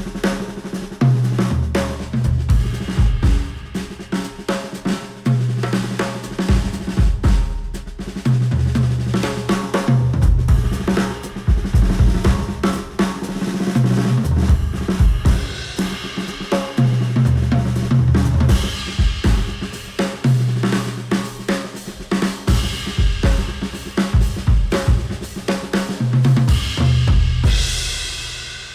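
Instrumental music with a full drum kit (snare, kick, cymbals and hi-hat) over a repeating bass line, played through a Sennheiser open-back headphone and picked up by measurement microphones. It fades out near the end.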